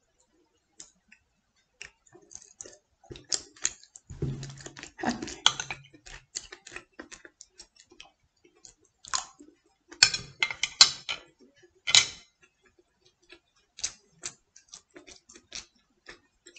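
Irregular clicks and taps of chopsticks and a metal spoon against china plates and a rice bowl while eating, loudest in a cluster about ten seconds in.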